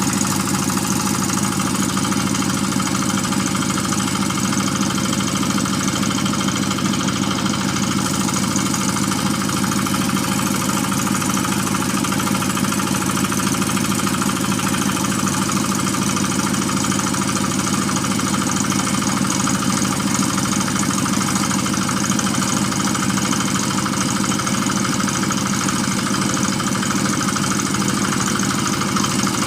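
Engine of a water-well drilling machine running steadily at a constant speed.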